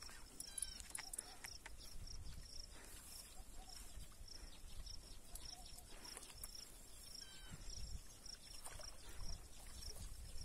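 An insect chirping steadily in a high-pitched pulse about three times a second, with a few short, higher chirps and a low rumble of wind.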